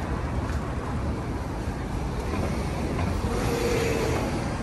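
Steady low rumble of city street traffic, with a short tone about three and a half seconds in.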